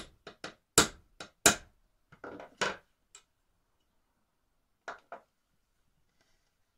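A small hammer tapping on a metal airsoft rifle part: a quick run of sharp strikes in the first second and a half, then a few lighter knocks and clicks as the part is handled.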